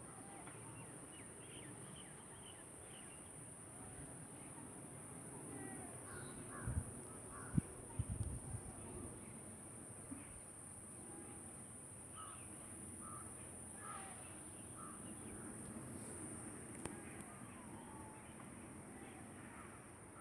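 Birds calling faintly in short, scattered calls over a steady high hiss, with a few brief thumps about a third of the way in.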